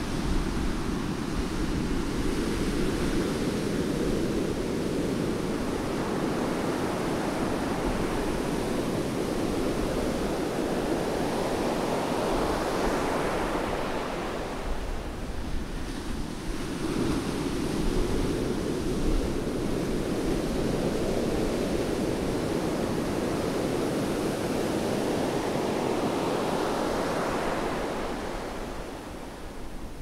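Rough surf: waves breaking offshore and foam washing up a sandy beach in a continuous rush that swells and eases, dips briefly about halfway, and falls off near the end.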